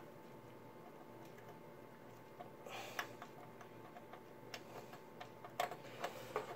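Faint, scattered clicks and taps of hands working a front-panel HD audio cable and its plug inside a PC case, with a couple of brief rustles about three seconds in and again near the end.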